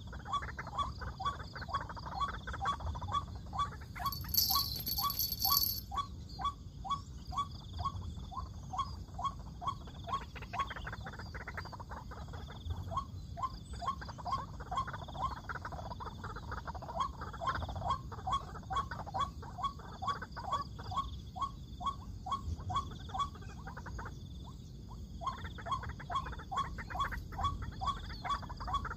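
White-breasted waterhen calling: a monotonous, rapidly repeated "kru-ak" at about two calls a second, pausing briefly near the end. A brief shrill high-pitched sound cuts in about four seconds in, over a steady low rumble.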